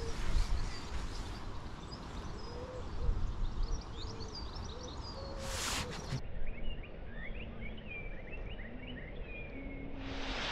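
Birds singing outdoors: many short, quick high chirps, with lower steady hooting notes underneath, over a low rumble of wind. A short loud hiss comes about five and a half seconds in.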